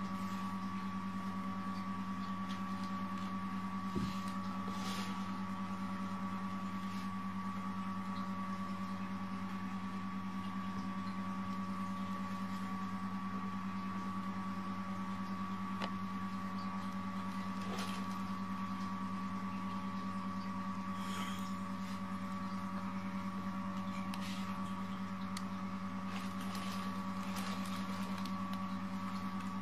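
A steady low electrical-sounding hum with a faint high whine running through it, and a few light knocks and scuffs from kittens playing on a hard floor.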